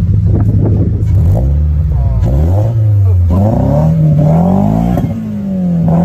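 Toyota 86's 2-litre boxer four-cylinder engine through its aftermarket exhaust, idling and then revved in a series of rising and falling blips, the last rev held up toward the end.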